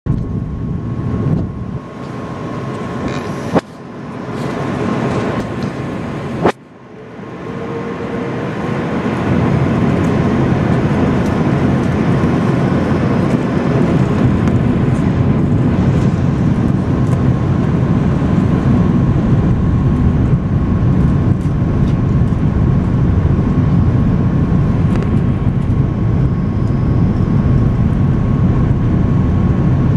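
Cabin noise of an Airbus A330-343 on approach, heard beside its Rolls-Royce Trent 700 engine: a steady rumble of engine and airflow with a faint steady whine. Two sharp clicks come in the first seven seconds, and then the rumble grows louder and holds steady.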